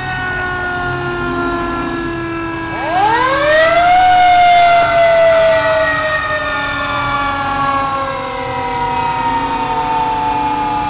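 Fire truck sirens wailing. One wail slowly falls in pitch throughout; a second sweeps up sharply about three seconds in, peaks a second later, then slowly winds down.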